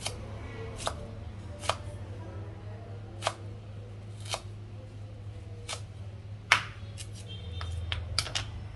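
Chef's knife slicing fresh ginger into matchsticks on a wooden cutting board: sharp knocks of the blade against the board, about one a second, coming quicker near the end.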